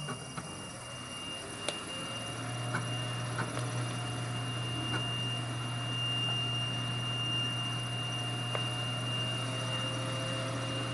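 Steady high-pitched whine from a PC with an MSI GeForce GTX 1080 Ti, with a low hum joining about two seconds in and a few faint clicks. The whine is coil whine that the owner places in either the graphics card or the power supply, the same at idle and under load.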